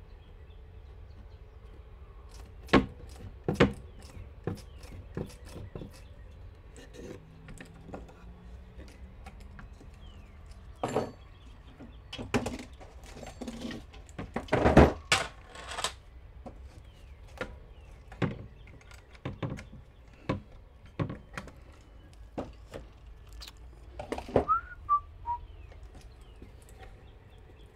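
Scattered knocks and clicks as a metal automatic vent-opener bracket is handled and held against a plywood greenhouse wall, the busiest stretch about halfway through. Near the end there is a short falling whistle.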